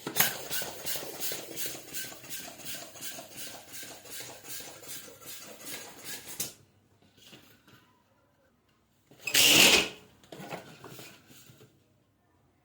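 Rubber balloon being worked with rapid rhythmic strokes, about three or four a second, for some six seconds. About nine seconds in comes a loud, sharp burst, a balloon popping, followed by a brief fainter rustle.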